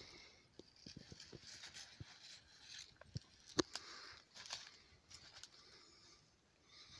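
Faint footsteps and rustling through dry leaf litter and twigs on a woodland floor, with scattered crackles. One sharp click about three and a half seconds in is the loudest sound.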